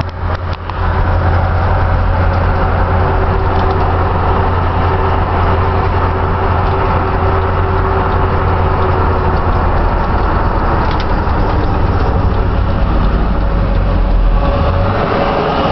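Ford van driving, heard from inside the cab: a steady low engine and road rumble under an even road noise. The rumble shifts about a second before the end.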